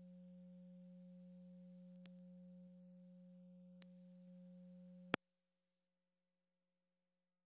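Faint steady low hum with a weaker higher tone above it and two faint ticks. About five seconds in, a sharp click cuts it off and the audio goes dead silent.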